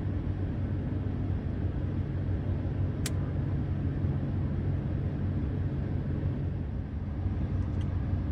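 A vehicle engine idling with a steady low hum, and a single sharp click about three seconds in.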